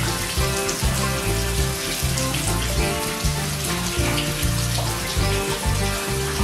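Background music with a steady beat and a stepping bass line.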